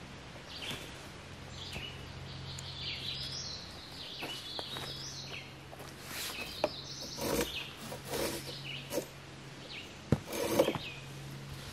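Camping hammock fabric and suspension rustling and rubbing as a person sits in and settles into the hammock, with a couple of sharper knocks near the end. A bird sings during the first half.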